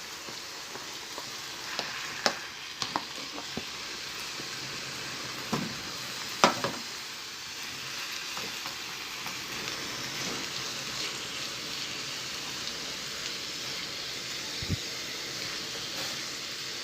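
Chicken breast and onion frying in oil in a hot pan: a steady sizzle. A few sharp knocks of stirring come in the first several seconds.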